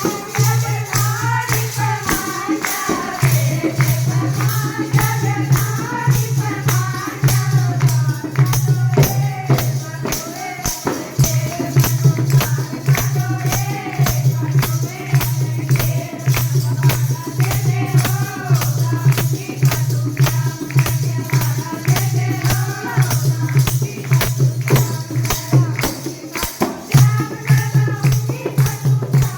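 Devotional Shyam bhajan music: sung melody over a fast, even beat of tambourine-like jingles and a steady low accompaniment, which drops out briefly a few times.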